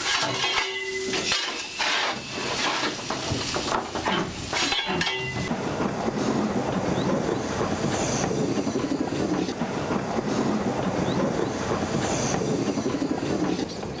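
Ivatt Class 2 2-6-2 tank steam locomotive: for the first five seconds or so, clanks and scrapes of a shovel firing coal into the firebox on the footplate; then the locomotive running slowly round the loop, a steady rumble of wheels on rail with a hiss of steam.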